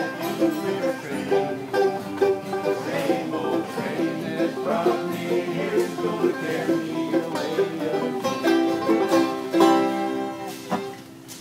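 An acoustic bluegrass band plays an up-tempo tune: banjo, resonator guitar played lap-style, fiddle, acoustic guitars and upright bass. It closes on held final notes that die away near the end.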